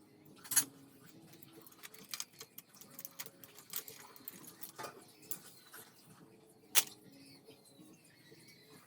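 Scattered light clicks and taps of tools and small metal engine parts being handled, with two sharp knocks, one about half a second in and one near seven seconds.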